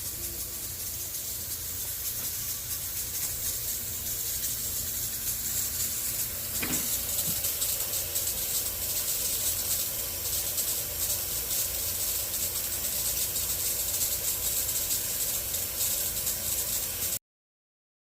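Lawn sprinklers spraying water over new sod, a steady high hiss that grows a little louder and then cuts off abruptly near the end.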